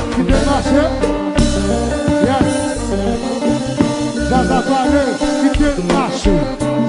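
Haitian kompa band playing live: a lead singer over a steady, repeating bass line with keyboards, guitar and drums.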